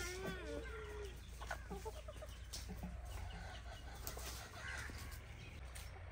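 Chickens clucking: a drawn-out wavering call in the first second, then scattered short calls, with faint clicks and knocks.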